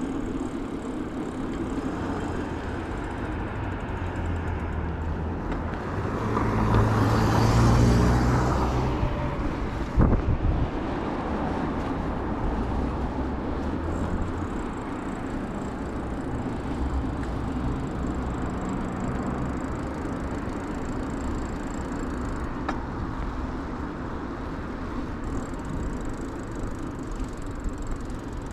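Steady road noise of a bicycle rolling over city asphalt, with a motor vehicle passing close by about six seconds in, rising and fading over about three seconds. A single sharp knock follows soon after.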